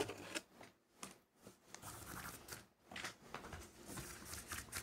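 Nylon paracord rustling and scraping as it is pulled out of a conquistador-weave bracelet, the weave coming apart in a few seconds. A faint run of rasps and small clicks.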